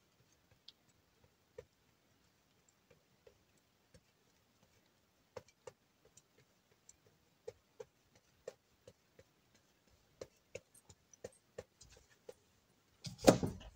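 Old cheddar being grated on a metal box grater: faint, irregular light clicks from the strokes, coming more often from about halfway through. A short, louder noisy burst near the end.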